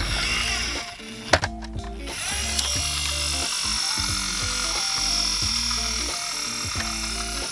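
Background music with a stepping melody. From about two seconds in, a steady high whirring noise runs under it.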